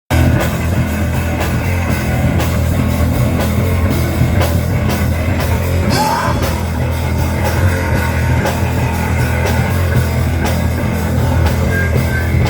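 Rock band playing live, with a drum kit keeping a steady beat over a heavy, bass-rich full-band sound.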